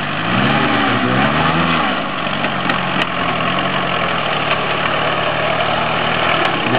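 Small garden tractor's engine running under a driver on a rough grass course. Its pitch rises and falls twice in the first two seconds as the throttle changes, then holds steady.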